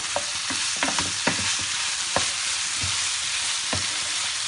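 Tofu cubes in chili-garlic paste sizzling in a little oil in a non-stick frying pan, stirred with a wooden spatula that knocks and scrapes against the pan at irregular moments.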